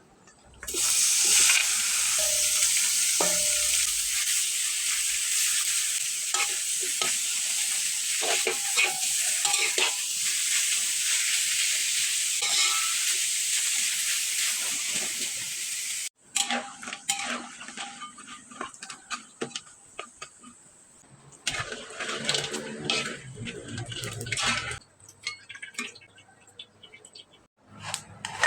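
Pork rinds deep-frying in hot oil: a loud, steady sizzle that cuts off suddenly about halfway through. After that come scattered clinks and scrapes of utensils against a pan.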